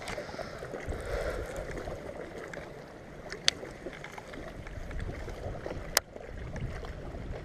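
Steady wind and water noise on a fishing boat, with a low rumble from about a second in, and two sharp clicks about three and a half and six seconds in.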